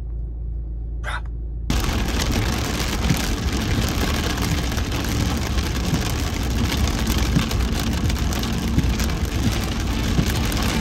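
Low steady road rumble inside a car, cut off about two seconds in by heavy rain on the moving car's windshield and roof: a dense, steady hiss heard from inside the cabin.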